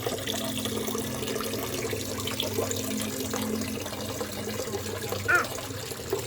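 Water running steadily from a tap into a sink or basin, with a steady low hum beneath it. A short high-pitched voice sound comes about five seconds in.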